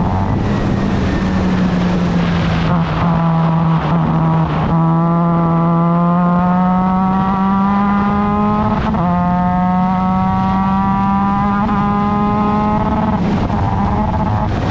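Formula Mazda race car's rotary engine at racing speed. It drops in pitch at the start, then climbs steadily under power through a long pull, steps down at a gear change about nine seconds in, and falls away again near the end.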